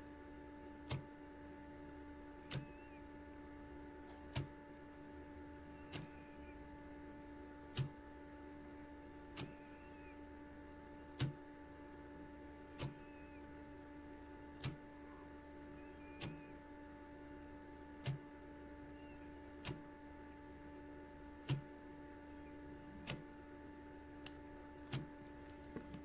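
LG direct-drive front-loading washing machine tumbling a wash load: a steady motor hum, with a sharp click repeating about every one and a half to two seconds as the drum turns.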